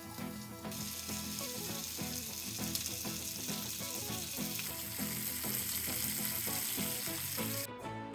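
Bluegill fillets frying in a pan: a steady sizzle that starts about a second in and cuts off suddenly just before the end. Background music with a beat plays underneath.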